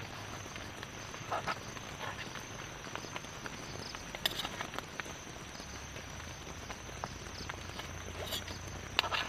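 A knife clinking and tapping against a steel plate a few times as food on it is cut, the loudest clink near the end, over a steady high-pitched drone in the background.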